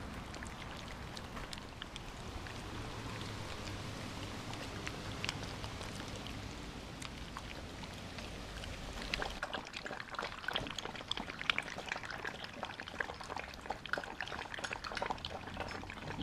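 Golden retriever puppies lapping and chewing wet food from stainless steel bowls: a continuous patter of small wet smacking clicks. The clicks get louder and busier from about nine seconds in.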